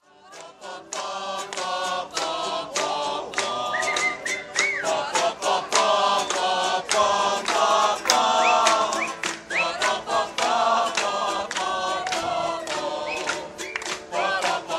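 Several voices singing together, choir-like, over many sharp percussive clicks, with a few short rising whistle-like glides.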